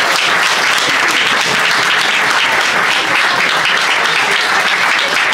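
A small group of people applauding, steady hand-clapping in a room.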